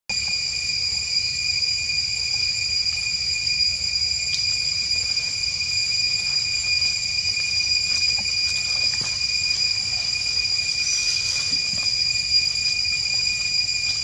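Steady, high-pitched insect drone holding one unwavering pitch, over a low rumble, with a few faint clicks.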